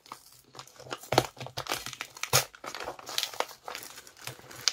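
Clear plastic parcel wrapping crinkling and crackling as it is handled and pulled open by hand, in irregular bursts with sharper crackles about a second and about two and a half seconds in.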